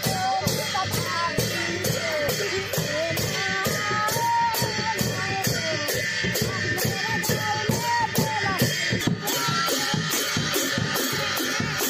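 Background music with a steady beat and a wavering melody line.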